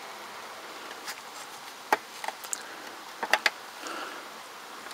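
Small sharp plastic clicks from gloved fingers twisting the bulb socket out of the climate control module, a few about two seconds in and a couple more about three and a half seconds in, over faint handling noise.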